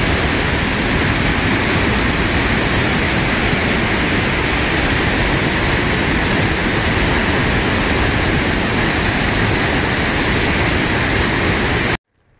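A large waterfall rushing steadily and loudly as heavy white water plunges into a rocky gorge. It stops abruptly near the end.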